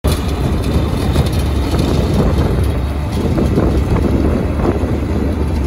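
Yanmar FX 32 D tractor's diesel engine running under load, driving a GEO SBb-145 stone burier whose rotor churns through the soil; a steady, dense rumble.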